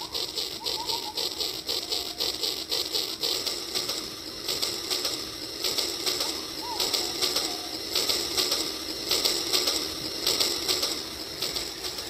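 Battery toy steam locomotive's built-in electronic chugging sound, a fast even rhythm of chuffs played through its small speaker.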